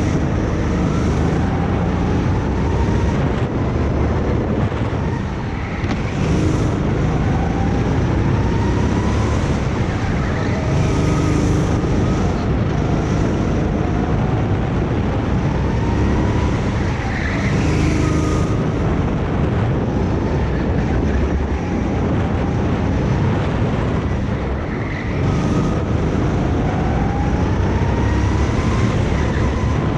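Racing kart engine running hard on track, its pitch climbing over a few seconds as it accelerates and then dropping off, again and again.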